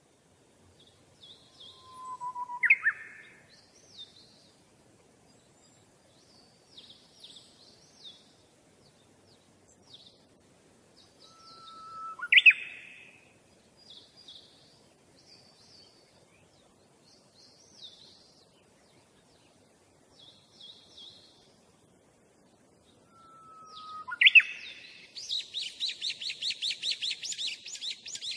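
Songbirds chirping, with a louder phrase three times, a short low whistle jumping up to a higher note. A fast, even trill comes near the end.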